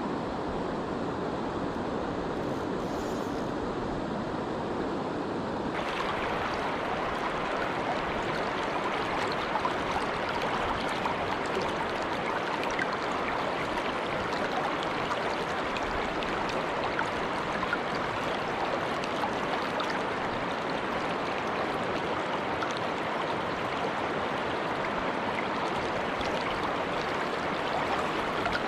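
Steady rush of flowing river water. About six seconds in the sound abruptly turns brighter and hissier, then stays even.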